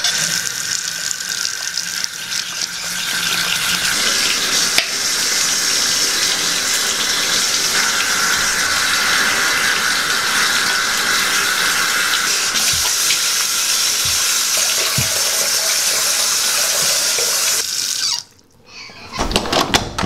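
Bathroom sink faucet running steadily into the basin, water splashing in the bowl; it cuts off suddenly near the end.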